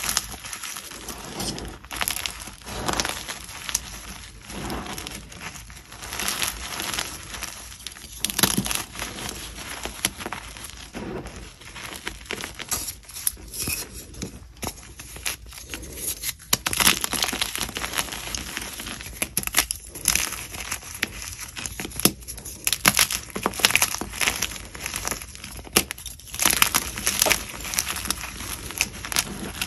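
Pieces of dyed and plain gym chalk crunching and crumbling up close, in an irregular run of crisp cracks and powdery crumbles.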